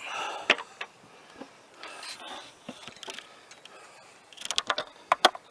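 Heavy-duty metal drawer slides being run out and back in on a test, with a sharp click about half a second in, sliding noises in the middle, and a rapid clatter of clicks near the end.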